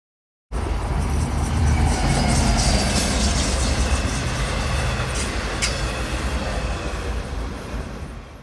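Subway train running on the rails: a heavy low rumble with thin high squealing tones and a sharp click or two. It starts abruptly about half a second in, eases off, and fades out at the end.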